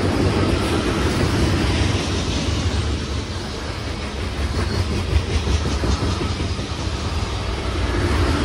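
Freight train of tank cars and covered hoppers rolling past at speed: a steady rumble of steel wheels on rail, with a few sharper clicks about halfway through.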